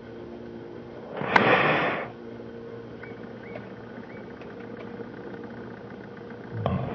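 Airbus A350-900's Rolls-Royce Trent XWB jet engines heard from far off at taxi power, a steady hum with a few held tones. About a second in, a loud rush of noise lasts about a second, and a brief low thump comes near the end.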